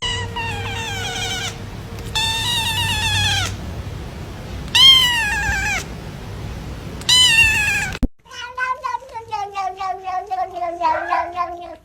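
Domestic cats meowing: four long, drawn-out, wavering meows, then, after an abrupt cut about eight seconds in, a rapid stuttering run of short calls slowly falling in pitch.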